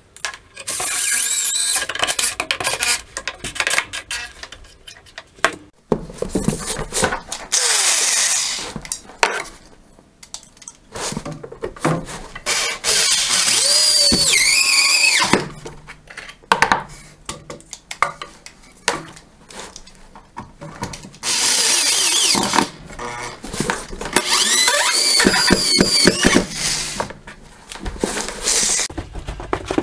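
Corded power drill running in several spurts of a few seconds each, its motor whine rising and falling, as it works through the base of a wooden pine angle bracket into the floor.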